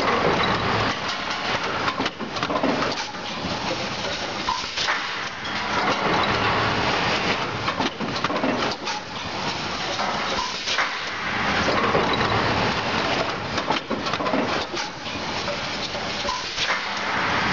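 Accumation ACC4 four-cavity bottle blowing machine running: a steady noisy rush with many sharp clicks and clatters, swelling and easing every few seconds.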